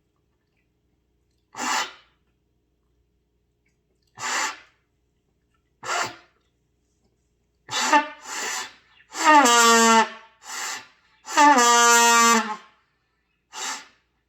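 Beginner playing a trumpet: several short breathy puffs through the horn that fail to sound a note, then two held notes at the same low pitch, each about a second long, the first sagging down into pitch as it starts. The airy, unpitched attempts are typical of a beginner not yet buzzing the lips steadily.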